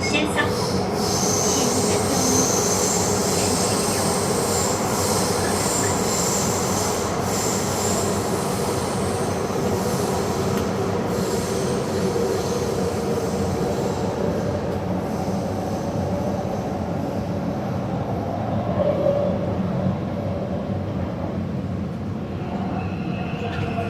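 Taipei Metro Zhonghe–Xinlu line train running, with steady rolling and motor noise. High-pitched wheel squeal is heard through roughly the first half, then fades.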